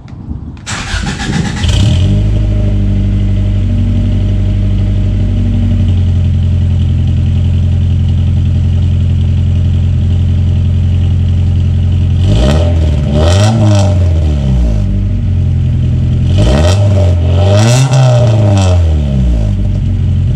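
A 1999 Acura Integra's four-cylinder engine, run through a cheap aftermarket cat-back exhaust with a test pipe in place of the catalytic converter, is started and catches about a second in. It then idles steadily and is revved twice, rising and falling each time, with the raspy Honda exhaust note the owner judges to sound bad.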